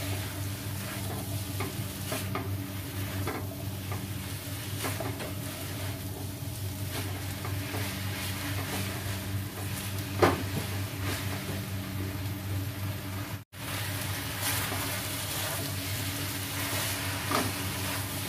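Udon noodles, cabbage and carrot being stir-fried in a nonstick wok: a steady sizzle with the spatula scraping and clicking against the pan, over a constant low hum. There is one sharper knock about ten seconds in, and the sound cuts out for an instant a few seconds later.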